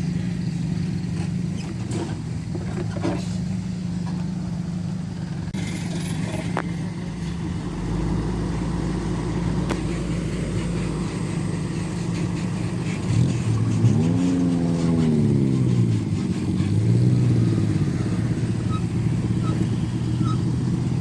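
A motor vehicle engine running steadily, then revving up and back down about two-thirds of the way in, with a shorter rev just after.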